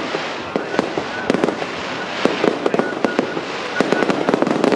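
Aerial firework shells bursting: a dense, irregular run of sharp bangs and crackles, several a second, over a steady haze of noise.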